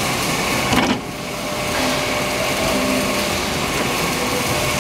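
Steady mechanical running noise from a four-roll plate rolling machine in a workshop, with a short knock just under a second in.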